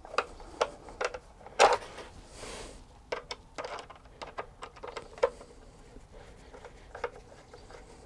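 Irregular small clicks and knocks of a screwdriver tightening the earth terminal screw on a weatherproof plastic twin socket and handling the wires, the loudest knock about one and a half seconds in, with a brief rustle soon after.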